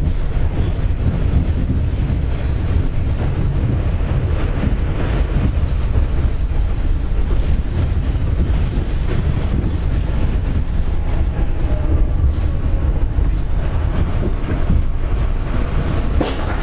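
New York City Subway D train running, heard from inside the car: a steady low rumble with wheels clicking over the rails and a high wheel squeal in the first few seconds. A sharp click comes about a second before the end, and a faint falling whine follows as the train runs alongside a station platform.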